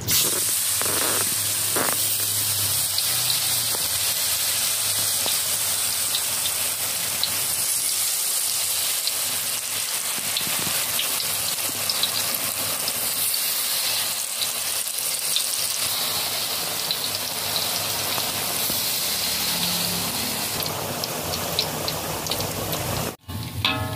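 Peanut rempeyek batter frying in hot oil in a wok: a steady, dense sizzle that starts suddenly as the batter goes into the oil. It cuts out for a moment near the end.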